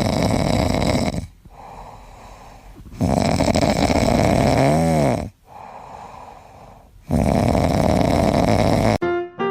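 Loud snoring: three long snores a few seconds apart with quieter breaths between them, the middle one with a short pitched squeak that rises and falls near its end.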